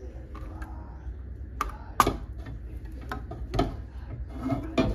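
Metal clicks and taps from fingers working the ring-pull tab on the lid of a large tin can, with one sharp, louder click about two seconds in.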